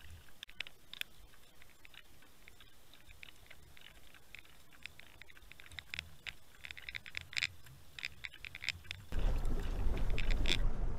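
Faint, muffled underwater sound with scattered light clicks from a camera towed behind a lure being trolled. About nine seconds in, it cuts abruptly to loud wind buffeting the microphone over a boat under way.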